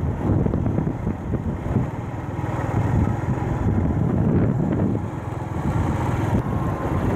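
A vehicle's engine and road noise, heard while riding along, with wind rushing over the microphone.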